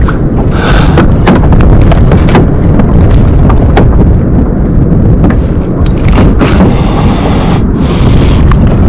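Loud, gusty wind rumble buffeting the microphone, with scattered sharp clicks and taps over it.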